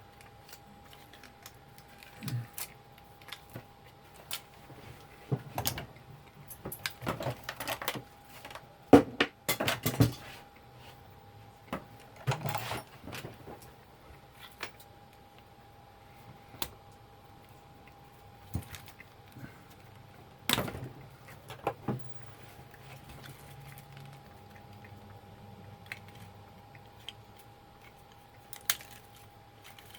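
Small plastic and metal parts of a label machine clicking and rattling as it is taken apart by hand: scattered clicks and short clatters, busiest from about seven to thirteen seconds in, with one sharper knock about twenty seconds in.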